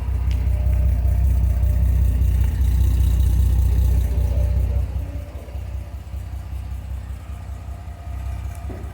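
1976 Ford Taunus 2.3 V6 engine running just after its rebuild, a steady deep rumble that gets noticeably quieter about five seconds in.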